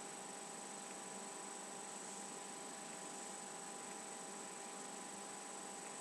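Steady background hiss with a faint high-pitched whine and a low electrical hum, unchanging throughout: the recording's own noise, with no other sound.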